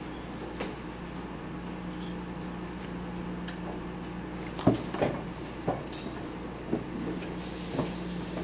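A steady low hum, joined from about halfway through by a handful of short, light knocks and clicks, like something being handled.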